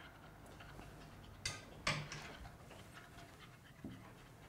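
Wooden spoon stirring cocoa powder into oat milk in a saucepan, mixing it smooth so no lumps form: a soft, uneven swishing, with two sharp clicks about a second and a half in and another near the end.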